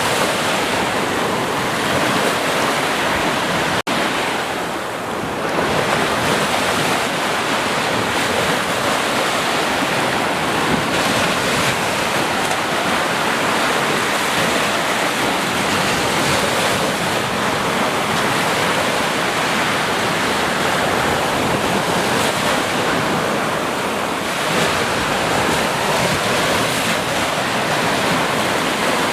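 Sea surf: waves breaking and washing in a dense, steady rush, with a momentary break about four seconds in.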